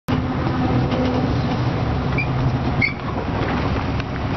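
A truck engine runs steadily with a low rumble. Two brief high chirps come about two and three seconds in.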